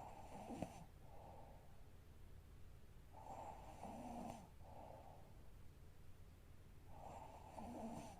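A young woman snoring faintly in her sleep: three snoring breaths about four seconds apart, each a drawn-in snore followed by a shorter, softer breath out.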